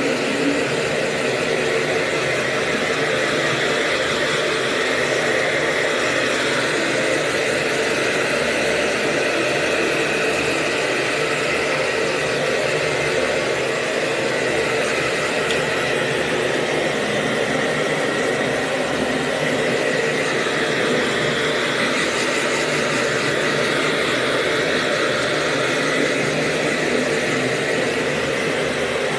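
Hair dryer running steadily: a constant rush of blown air with a steady high motor whine.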